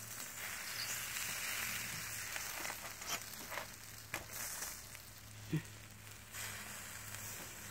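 Sausages sizzling in a hinged wire grill basket over glowing embers: a steady hiss with scattered pops and crackles.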